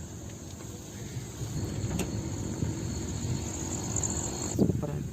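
Car driving along a road, heard from inside the cabin: a steady low rumble of engine and tyres, with a single sharp click about two seconds in.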